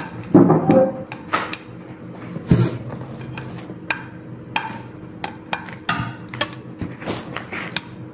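Scattered light clicks and knocks of tableware and food being handled at a table, irregular and short.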